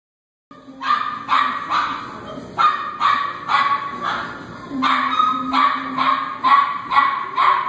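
A dog barking repeatedly in play, short barks about two a second, starting about half a second in: play barks inviting another dog to play.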